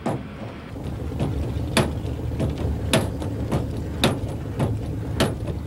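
T-6 Texan's hand-operated hydraulic pump being stroked by its handle to raise the flaps with the engine shut down. It gives a sharp click at each stroke, about two a second, the louder ones about once a second, over a steady low rumble.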